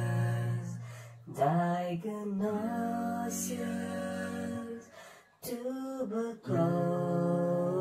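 Background music: a slow song with long held sung notes, broken by short pauses about a second in and again about five seconds in.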